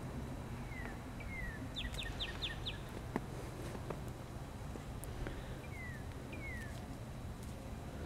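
A songbird singing: a couple of slurred notes falling in pitch, then a quick run of five short downward notes about two seconds in, and two more falling slurs later, over a low steady rumble.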